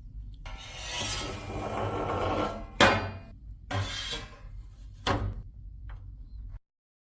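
Rasping scrape lasting about two seconds, ending in a sharp knock. A shorter scrape follows, then a second sharp knock and a small click, after which the sound cuts off abruptly.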